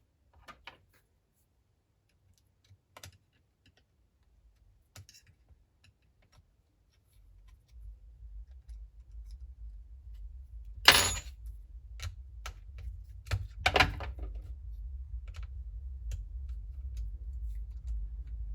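Small clicks and taps of tools and plastic parts as a smartphone's loudspeaker (buzzer) module is worked loose and lifted out, with two louder clicks a little past the middle. A low rumble comes in about halfway.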